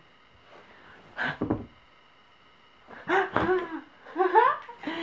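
Baby laughing in two bursts, about three and four seconds in, high-pitched and bending up and down.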